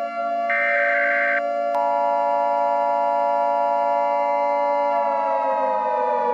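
Civil-defense-style siren sound effect holding a steady pitch, then beginning to wind down in pitch near the end. A brighter pulsed tone sounds once about half a second in, and a steady higher alert tone joins in about two seconds in.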